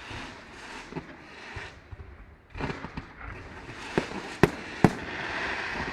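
Fireworks bursting overhead: a run of sharp bangs, the loudest three close together about four to five seconds in, with crackling and rumble between them.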